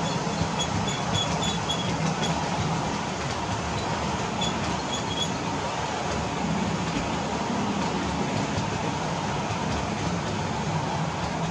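Model train of blue-and-grey passenger coaches rolling steadily past on the layout track, a continuous low rumble of wheels on rail, with a few faint, short high squeaks in the first half.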